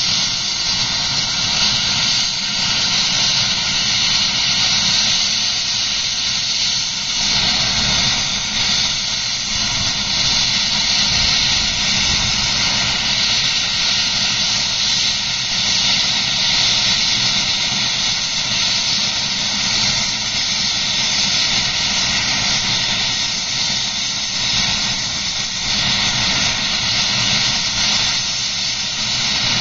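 Helicopter's turbine engine and rotor running on the ground, a loud, steady high-pitched hiss and whine with a low rumble beneath it.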